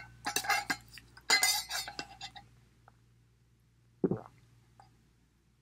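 Clinks and knocks as an insulated drinking tumbler is picked up and handled, followed by a single swallow about four seconds in as it is drunk from.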